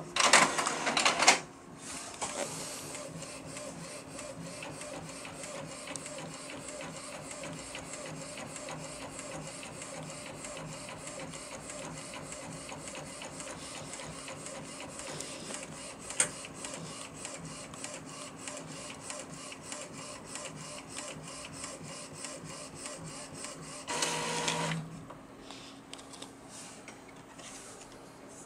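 Epson L800 six-colour ink tank inkjet printer printing a photo on glossy paper. It opens with a short loud mechanical burst as the sheet is drawn in, then runs with the steady, regular ticking of the print head sweeping back and forth for about twenty seconds. Near the end comes a louder whirring burst as the finished print is fed out.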